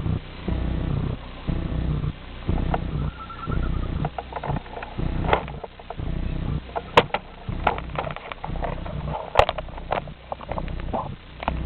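G scale model train running on outdoor garden-railway track: a low rumble that comes and goes, with scattered sharp clicks from the wheels and track.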